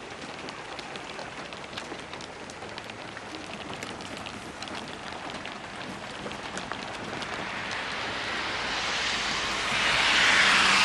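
Soft hail pellets falling and ticking on surfaces in many small clicks over a steady hiss; over the last few seconds the hiss grows steadily louder.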